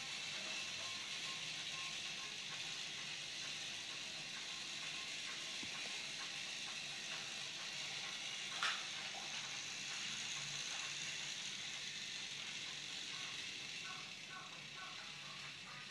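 Tomy Plarail battery-powered toy locomotive's small electric motor whirring steadily as it pulls its cars around plastic track, with the wheels running on the rails and one sharp click about halfway through. The train is running on weak batteries.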